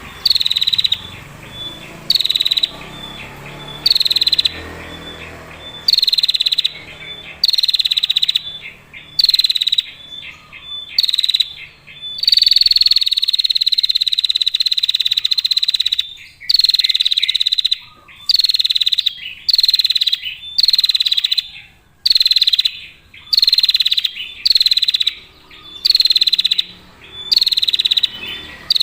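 Female prinia (prenjak) giving its long trilling 'ngetir' calls, high-pitched, in short bursts about once a second, with one long unbroken trill of several seconds just before halfway.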